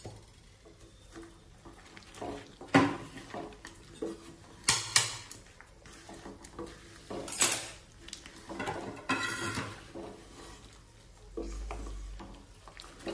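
Wooden spatula stirring a dry, roasting spice-and-coconut mixture in a non-stick kadai: irregular scrapes and knocks against the pan, a second or two apart.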